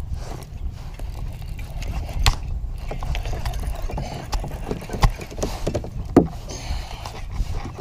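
Wind buffeting the microphone with a low rumble, and a clatter of clicks and knocks as the camera on its mount is handled, the loudest three about two, five and six seconds in.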